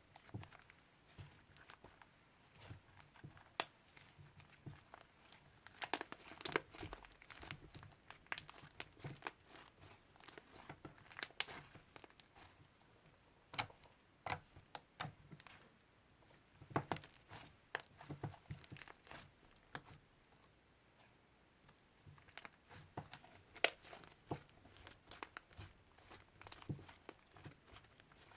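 Slime being squished, pressed and stretched by hand, giving irregular sharp clicks, pops and crackles.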